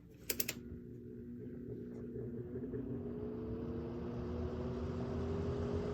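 Easy Home box fan's electric motor starting on low speed: a few sharp clicks, then a hum that rises slowly in pitch as the motor spins up and the rush of air grows louder.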